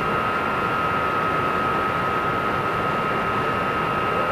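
Steady machine noise: an even rushing hiss with a constant high whine over it, unchanging throughout.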